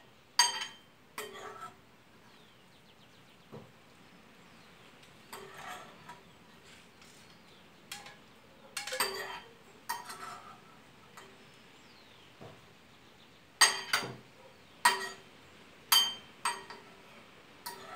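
Metal spoon clinking against ceramic bowls as shrimp are scooped from one bowl into another. There are about a dozen sharp, ringing clinks at irregular intervals, closest together and loudest in the last few seconds.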